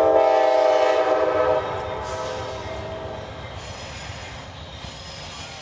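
Diesel locomotive air horn sounding a multi-note chord in one loud blast that cuts off about a second and a half in, with a weaker tail of the chord fading out a couple of seconds later, over the rumble of the approaching train.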